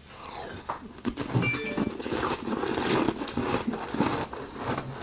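Biting into and chewing a mouthful of a yellow ice ball: a dense, irregular run of crisp crunches that starts softly and grows louder about a second in.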